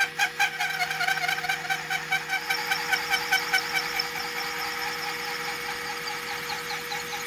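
Metal lathe parting tool cutting into a metal wheel-hub flange, squealing and chattering in a pulse several times a second over the lathe's steady running hum. The pulsing is strongest for the first few seconds, then settles into a steadier squeal as the cut goes on.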